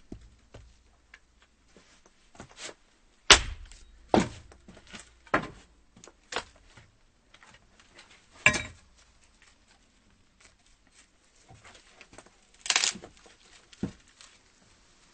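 Axe chopping firewood: a series of sharp wooden strikes at irregular intervals, the loudest a little over three seconds in, with fainter knocks between.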